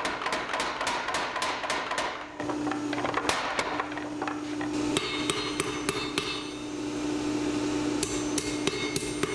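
Power hammer pounding hot metal in a quick steady rhythm of about four blows a second, stopping about two seconds in. A steady hum follows, and from about five seconds in a hand hammer strikes the work on the anvil with short ringing blows.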